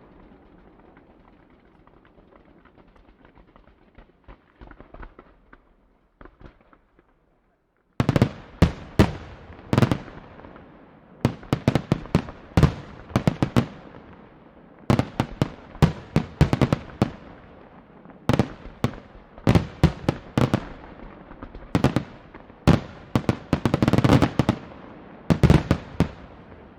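Fireworks display: a fading echo and faint crackle, a brief silence, then about eight seconds in a rapid barrage of loud, sharp shell bursts, several a second in clusters, each followed by an echo.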